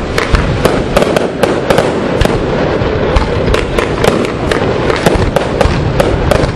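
Fireworks display going off: a rapid string of sharp bangs, several a second, over a continuous dense din of explosions.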